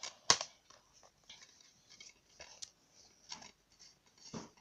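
A plastic DVD case being handled and opened: one sharp click about a third of a second in, then scattered faint clicks and taps, with another click near the end.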